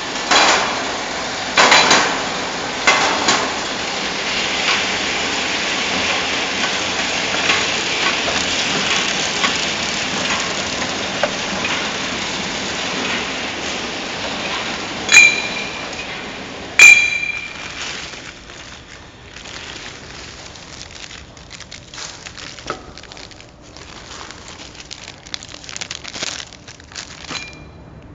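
Tube packing machine running with a steady rushing noise and occasional metal knocks. A little past halfway come two loud ringing metal clangs, after which the machine runs quieter with scattered clicks and taps.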